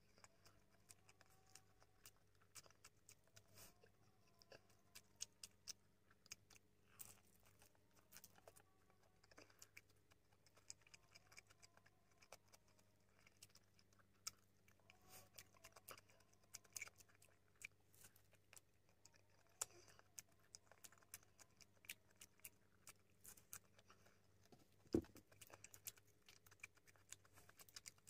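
Close-miked eating sounds: frequent small wet clicks, smacks and crunches of chewing as fish lumpia, rice and lettuce are eaten by hand, with one louder knock near the end and a faint steady low hum underneath.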